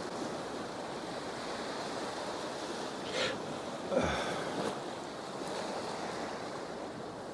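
Ocean surf washing onto the beach, a steady noise of waves with some wind, and a short louder bump about four seconds in.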